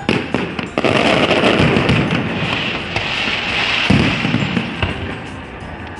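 Fireworks display: aerial shells bursting over a dense, continuous crackle of glittering stars, starting suddenly, with one heavy bang about four seconds in.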